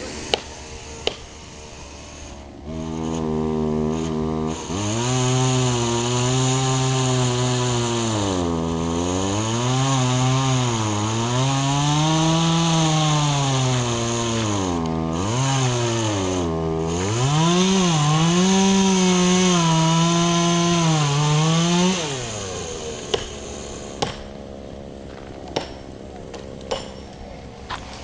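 Chainsaw engine revving up and down over and over for about twenty seconds, then winding down. A few sharp cracks follow near the end.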